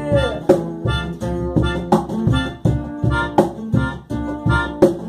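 Reggae band playing an instrumental passage with a steady beat.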